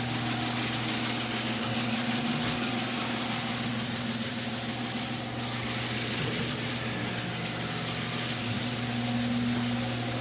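A motor or engine running steadily, a constant hum with a hiss over it.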